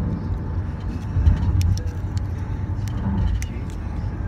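Steady low rumble of a moving car heard from inside the cabin, with scattered light crinkles and ticks of a foil candy wrapper being unwrapped by hand.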